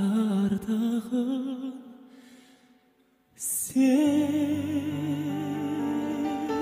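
Male voice singing a slow Kazakh ballad with wide vibrato; the phrase fades away almost to silence, a short hiss follows, and then he holds one long, higher note over steady accompaniment chords.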